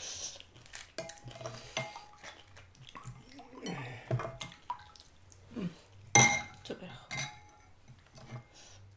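Eating utensils clinking against dishes: a run of light taps and clinks, several with a short ring, the loudest about six seconds in.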